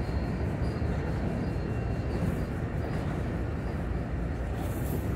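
Freight train cars rolling past close by: a steady rumble of steel wheels on the rails as a string of autorack cars goes through.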